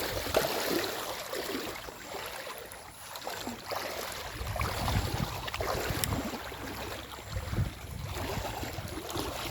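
Stream water splashing and rushing as people wade and work in a shallow river, with uneven low rumbles.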